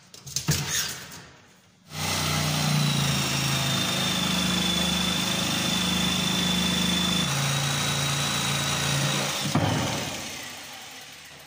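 Corded jigsaw cutting a curve through a laminated wooden panel. A few knocks come first, then the saw starts about two seconds in and runs steadily with a high whine, its note dropping a little past the middle. Near the end it switches off and winds down.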